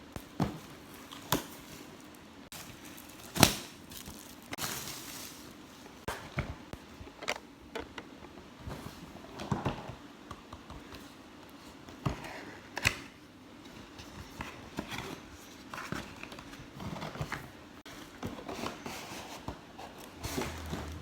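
Snack packaging being handled and opened: plastic crinkling and rustling, with scattered sharp taps and knocks, the loudest about three and a half seconds in.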